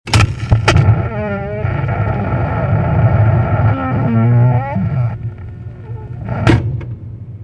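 Door hinges creaking as a door is swung: two wavering squeals over a low rumble, with sharp clicks at the start and a knock near the end.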